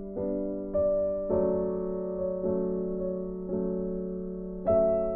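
Background piano music: single notes and chords struck about once a second, each fading before the next, with a louder chord near the end.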